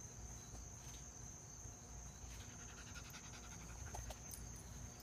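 Faint, steady high-pitched insect chirring, as of crickets, over a low rumble on the microphone.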